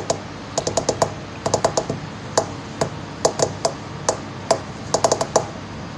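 Long fingernails tapping on a marble tabletop: sharp little clicks, mostly in quick runs of three or four, drummed again and again.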